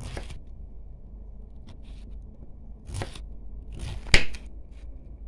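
Kitchen knife cutting zucchini into cubes on a cutting board: about half a dozen irregular cuts, the loudest a sharp knock of the blade on the board about four seconds in.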